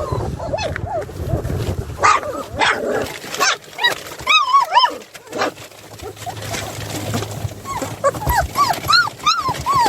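Puppies whining and yelping in short, arching high-pitched cries, coming in bunches with a lull around the middle.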